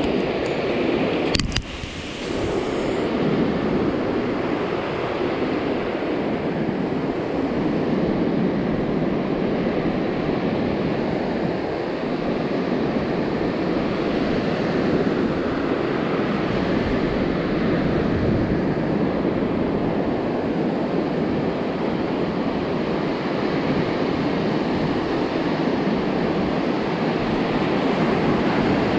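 Ocean surf breaking and washing up on a sandy beach: a steady rush that swells and eases. A brief sharp click about a second and a half in.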